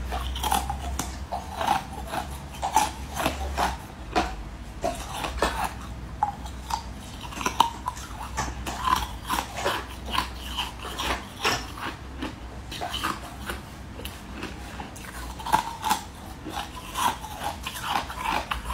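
Close-miked biting and chewing of soft pink food strips: many short, irregular bites and mouth sounds, over a steady low hum.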